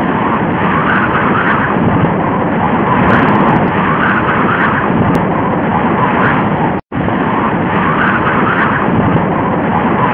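Tornado wind sound effect: a loud, steady rushing of wind. It cuts out for a split second about two-thirds of the way through, then carries on unchanged.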